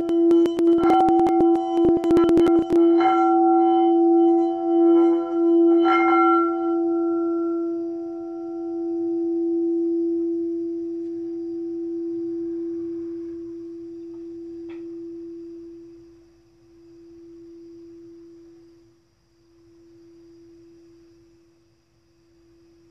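Singing bowl played with a mallet. A rapid run of clicking contacts against the rim for the first few seconds and a few more strikes around 3, 5 and 6 seconds set it ringing. Then one deep tone with higher overtones rings on and slowly fades, wavering in slow pulses.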